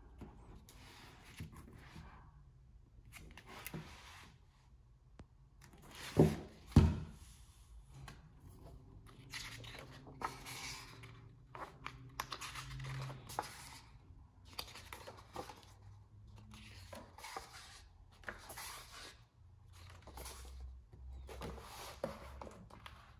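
Hands opening a large hardcover book and turning its thick paper pages: a series of short paper rustles and swishes. Two sharp knocks, much louder than the rest, come about six and seven seconds in.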